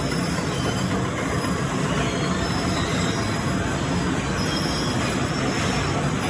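Industrial bakery machinery on a torpedo roll production line running: a steady mechanical din with a low hum and thin high whining tones.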